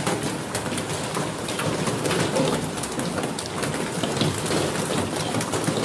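Hailstorm: hailstones pelting a parked car and the street, a dense, steady clatter of countless small impacts.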